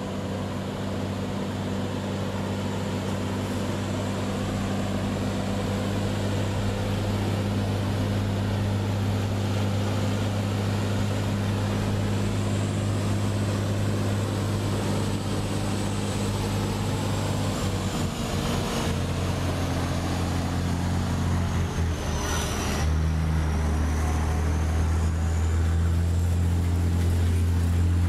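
Heavy truck's diesel engine running steadily at low speed. About three-quarters of the way through, its pitch steps down and it grows a little stronger.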